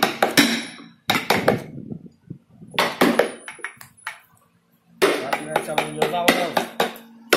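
Wooden mallet striking a carving chisel into wood: a series of sharp knocks, each with a short ring, coming in irregular runs with a few brief pauses.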